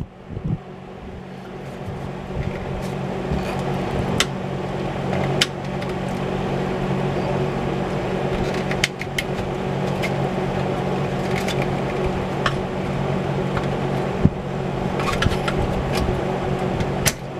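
A steady machine hum with a low drone, building over the first few seconds and then holding, with scattered small clicks and knocks.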